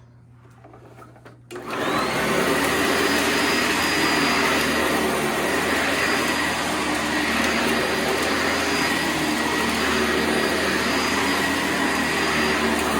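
Direct-air upright vacuum cleaner switched on about a second and a half in, its motor whine climbing as it spins up, then running steadily while picking up spilled cat litter.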